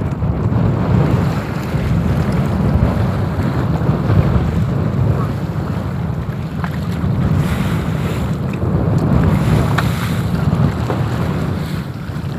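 Wind buffeting the microphone in low rumbling gusts, over the wash of choppy sea water around the boat.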